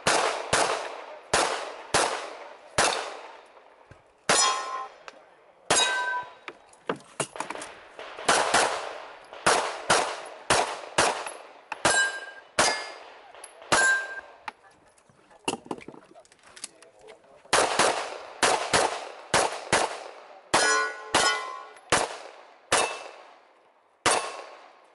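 Pistol shots fired in quick strings of two or more, each cracking loudly and echoing off the range. A handful of hits on steel plate targets ring out with a clear metallic tone, about four, six, twelve, fourteen and twenty-one seconds in.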